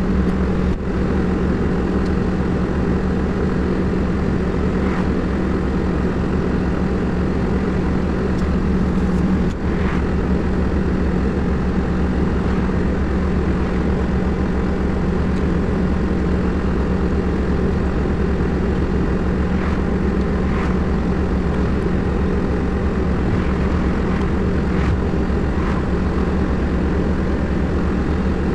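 Hepco backhoe loader's diesel engine idling steadily, heard from the operator's cab: an even, unchanging low drone.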